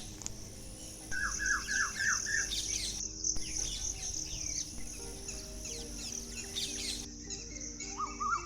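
A chorus of small birds chirping, with a dense high twittering throughout. One bird repeats a quick run of about five short downward-slurred notes, a second or so in, and starts the run again near the end.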